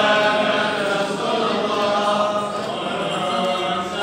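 A group of men chanting an Islamic devotional song together, with long held notes.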